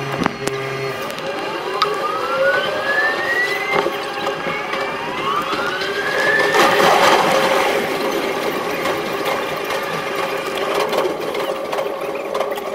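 Keihan electric train in a tunnel, sped up six times: the traction motors' whine rises in pitch twice as the train pulls away. The running noise is loudest about seven seconds in, then carries on steadily.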